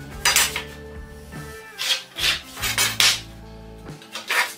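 Pencil scratching lines onto plywood against a metal square: about five short strokes, over background music.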